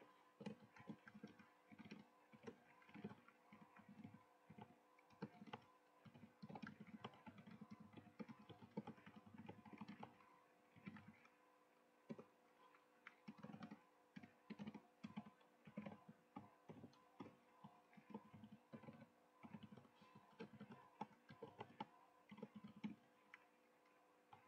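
Computer keyboard being typed on: faint, quick, irregular runs of key clicks with brief pauses between runs.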